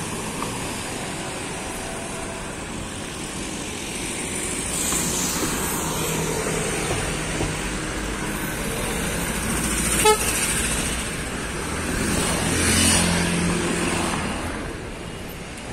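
Street traffic, with cars passing close by and swelling louder twice, and one short car horn toot about ten seconds in.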